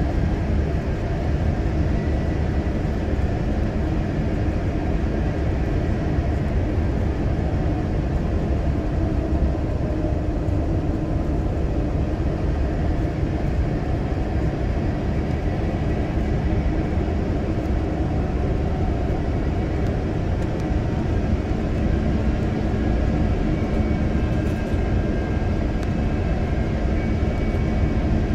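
Airbus A350-900 cabin noise on final approach: a steady, even rumble of the Rolls-Royce Trent XWB engines and airflow heard from inside the cabin, with faint high tones coming in near the end.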